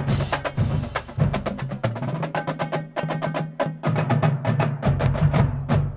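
Marching drumline of snare drums, quad tom sets and tunnel bass drums playing a fast, dense cadence, with rapid sharp snare strokes over pitched booming bass drum notes.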